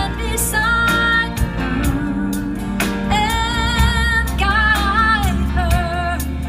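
Live band music: a woman sings the lead line over electric bass guitar and a steady drum beat.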